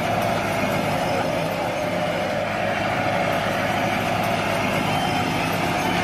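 Remote-control toy excavator running with a steady, even mechanical hum as it digs in dirt.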